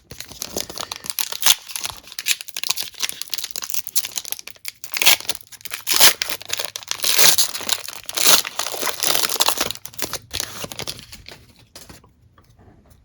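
Plastic wrapper of a trading card pack being torn open and crinkled by hand, with several louder rips and crackles. The crinkling dies down near the end.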